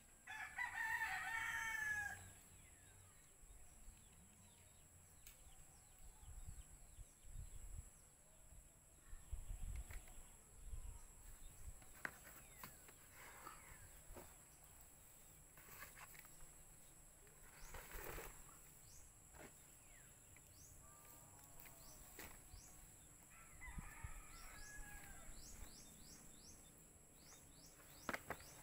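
Quiet handling of black plastic water pipe and blue hose couplings, with scattered soft knocks and rustles. A bird calls twice, a pitched call of about two seconds at the start and again near the end.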